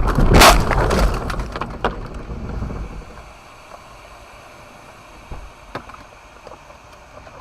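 Car collision picked up by a dashcam: a loud crash with heavy rumble and sharp knocks in the first second. It dies away over the next two seconds to a low steady hum with a few faint clicks.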